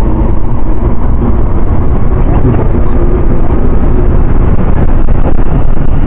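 Steady, loud rumble of a vehicle on the move, with the sound mostly low-pitched and unbroken.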